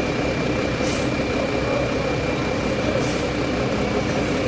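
A bus's diesel engine running steadily at low revs while the coach is manoeuvred, with two short hisses about a second in and about three seconds in.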